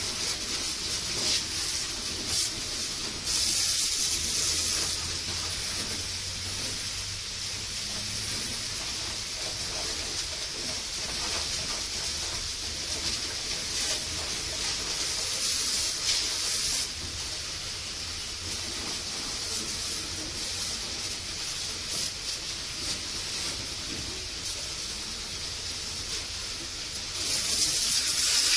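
High-pressure water jet hosing down the mud-caked crawler track and metal panels of a rice combine harvester: a steady spraying hiss. It grows louder for a couple of seconds about three seconds in, and again near the end.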